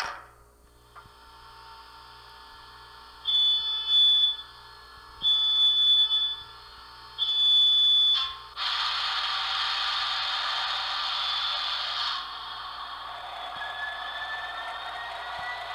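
Sound decoder of an N scale Broadway Limited SD70ACe with Paragon3 sound, playing diesel locomotive sounds through its tiny onboard speaker. The engine idles under three horn blasts of about a second each; about eight seconds in comes a loud hiss lasting some four seconds, and then a rising whine near the end.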